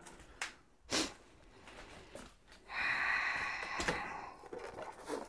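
A couple of light knocks, then about two seconds of squeaky scraping from the white foam packing rubbing against the cardboard box as it is shifted off the bandsaw.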